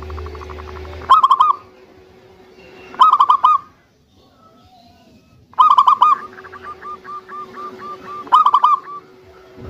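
Zebra dove (perkutut) cooing: four loud bursts of quick staccato coo notes, each about half a second long and two to three seconds apart, with a run of softer rapid notes between the third and fourth.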